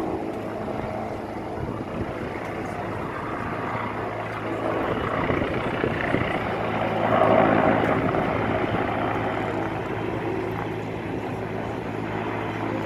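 T129 ATAK attack helicopter flying, a steady rotor and turbine sound that swells to its loudest a little past the middle.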